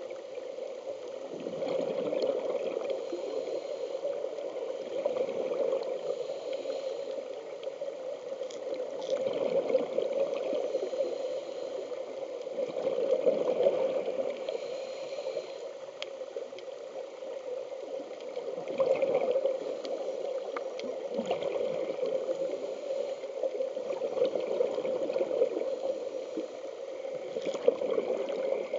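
Water heard from a camera underwater: a steady, muffled rushing with gurgling that swells louder every few seconds.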